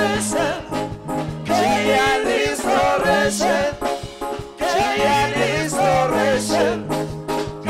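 Song with singing over a stepping bass line and drums keeping a steady beat.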